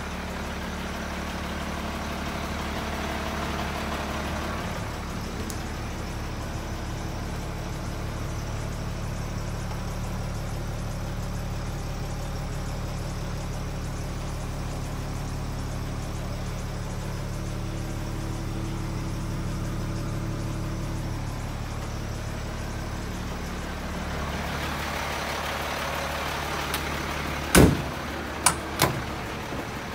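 International DT-466 turbo diesel engine idling steadily, with three sharp knocks in quick succession near the end.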